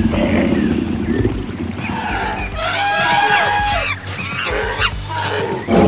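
Animal stampede sound effects: a steady low rumble of running hooves with animal calls layered on top, including a high, held, trumpet-like call in the middle.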